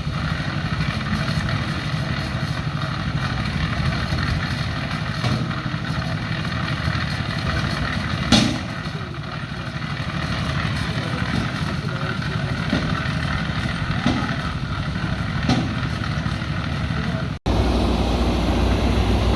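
JCB backhoe loader's diesel engine running steadily as it works, with one sharp knock about eight seconds in and a few lighter knocks. Near the end the sound changes abruptly to a deeper, louder engine sound.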